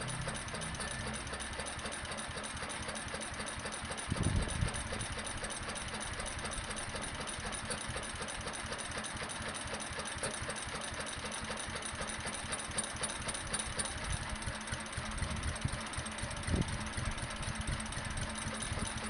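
Fowler 1PA stationary engine running on its first run, fed by a carburettor, with a steady rhythmic beat. A louder low thud stands out about four seconds in and again near the end.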